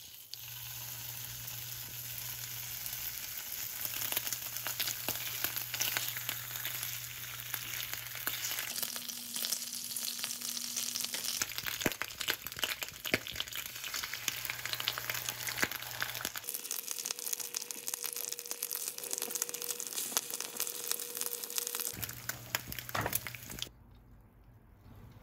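Food sizzling and crackling as it fries in a pan, in several short stretches that cut abruptly from one to the next.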